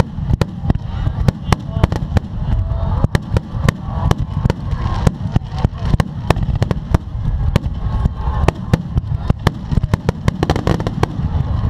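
Fireworks finale: a rapid, unbroken run of shell bursts and sharp cracks, several a second, over a constant low rumble of booms.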